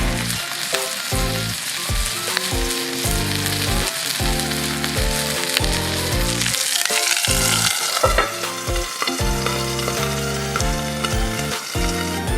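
Food frying with a steady sizzle, which swells for a couple of seconds just past the middle, under background music with a steady rhythmic beat.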